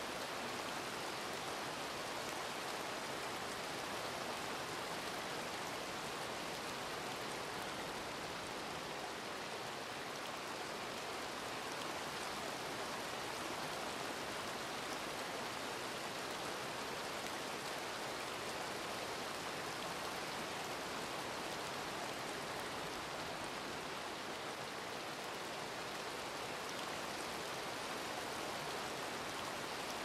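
Steady rain falling, an even hiss that neither swells nor fades, with no single drops or thunder standing out.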